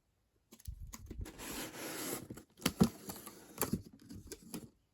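Packaging being opened and handled: rustling and crinkling starting about half a second in, then a few sharp taps and knocks as the contents are taken out.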